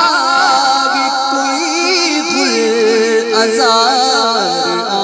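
A man singing a devotional Urdu kalam (naat) solo into a microphone, in long held notes with wavering, sliding ornaments.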